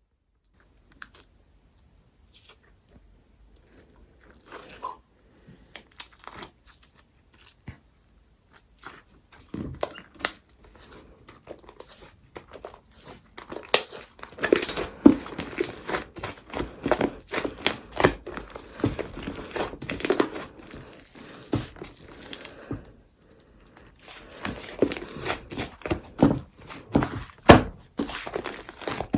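Hands squishing and stretching a clay-mixed slime, giving a string of short clicks and pops. These are sparse at first and come thick and fast from about a third of the way in, with a short pause late on.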